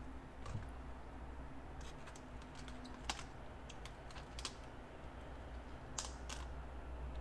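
Outer leaves being snapped and peeled off a head of green cabbage by hand: faint, scattered crisp clicks and crackles, about ten over several seconds.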